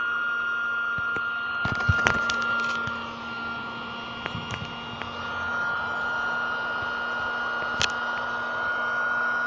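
Battery-powered air pump running steadily with a high whine, blowing air into an air mattress, with a few sharp knocks from the pump being handled about two seconds in and near the end.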